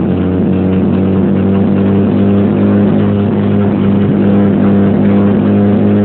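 Volkswagen Gol G4's engine running at steady high revs, heard from inside the cabin.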